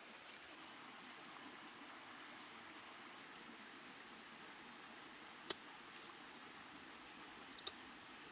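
Near silence: faint steady hiss, broken by one sharp click about five and a half seconds in and two small ticks near the end.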